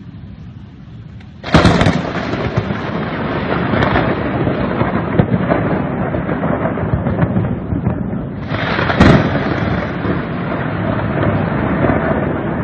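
Thunder: a sudden loud thunderclap about a second and a half in, running on into a long rolling rumble, then a second crack about seven seconds later that rolls on the same way.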